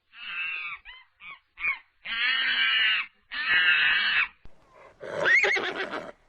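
An animal calling in a series: several short cries, then two long harsh calls of about a second each, and a higher call with a rising pitch near the end.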